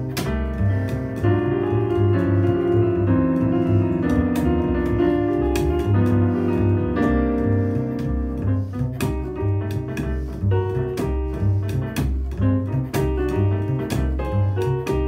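Jazz duo of digital piano and upright double bass: piano chords and melody lines over a steady run of plucked bass notes.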